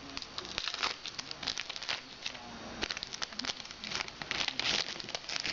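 Trading card packs and cards being handled: foil wrapper crinkling and cards rustling as they are flicked through, a dense run of quick, sharp crackles.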